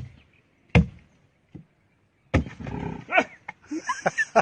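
Sharp knocks, about one every second, like blows struck with a tool. From about halfway they give way to a rough scuffling noise mixed with short cries.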